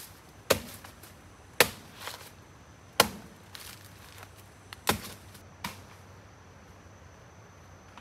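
A blade chopping into wood or stems: five sharp strokes roughly a second apart, the last about six seconds in.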